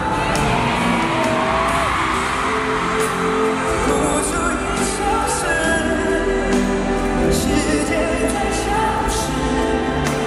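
Live pop ballad over an arena PA: a male lead voice singing into a handheld microphone over the backing band, recorded from the audience.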